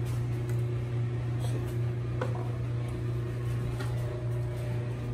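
A steady low hum with a few light clicks and knocks from a glass liquor bottle being handled over the counter.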